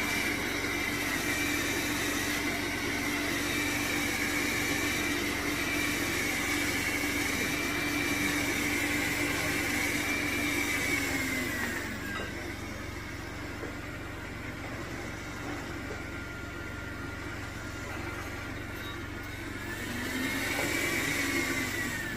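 Dreame L10s Ultra robot vacuum's motor whining steadily with a slowly wavering pitch. The motor winds down about twelve seconds in, then spins back up briefly and falls again near the end.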